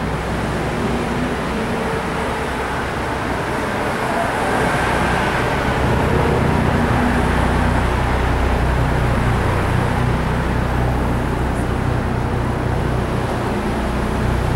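A line of cars driving slowly past one after another: a steady mix of engine and tyre noise with a low rumble that gets louder about five seconds in.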